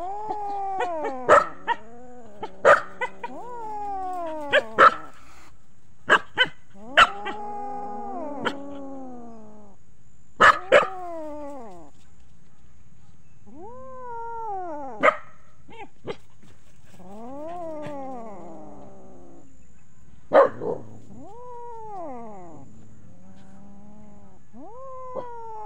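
Kittens mewing over and over: high, arching cries that rise and fall in pitch, several voices now and then overlapping. Sharp short clicks are scattered among the cries.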